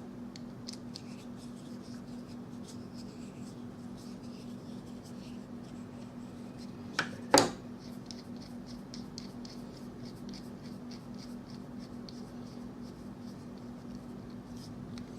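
Handling of a bicycle multi-tool, its Allen key turning the chain tool: faint scratches and light ticks of small metal parts. Two sharp metal clicks come close together about seven seconds in, over a steady low hum.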